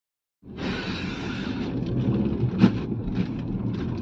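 Steady road and wind noise inside a moving car's cabin, with a low rumble and hiss picked up by a small camera's mic. It starts after a short silent gap, and a single sharp click comes about two and a half seconds in.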